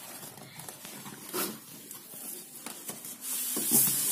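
Cardboard box and a styrofoam packing box being handled during unboxing: scattered rustles and scrapes. About three and a half seconds in there is a louder, hissing scrape as the cardboard box is slid off the foam box.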